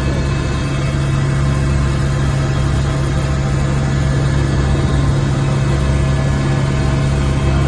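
Helicopter engine and rotor noise, a loud, steady drone with a strong low hum that holds even throughout.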